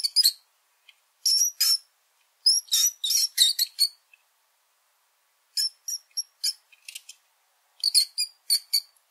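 Rats squeaking: short, high-pitched squeaks in quick clusters of several at a time, with gaps of a second or so between the clusters.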